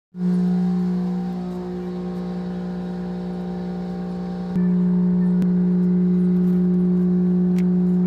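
A steady mechanical hum on one low pitch, which gets louder in a sudden step about halfway through, with a few faint clicks near the end.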